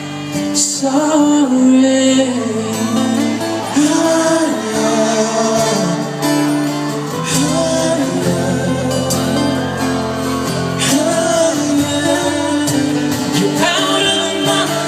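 Live pop ballad: a singer draws out wordless, bending vocal runs over a band's steady accompaniment, with the echo of an open-air concert stage.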